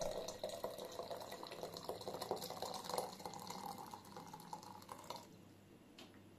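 Hot water poured into a teapot of herbs and mashed sea buckthorn, a steady filling pour whose pitch rises as the pot fills, stopping about five seconds in.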